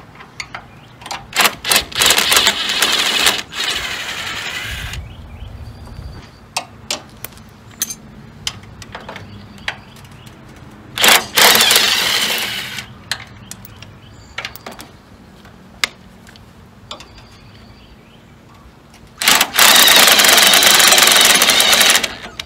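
Cordless impact wrench hammering out the 9/16 transmission bolts, in three runs of a few seconds each: the first begins with short stuttering bursts, the last is the longest. Sharp metallic clinks of tools and bolts fall between the runs.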